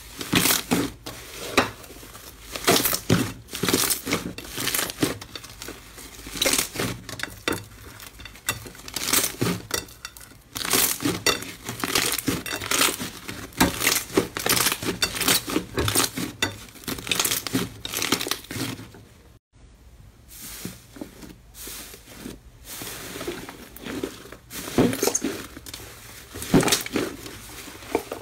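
Thick slime being squeezed, stretched and kneaded by hand on a plate, making irregular sticky pops and crackles. The sound breaks off for a moment about two-thirds of the way through.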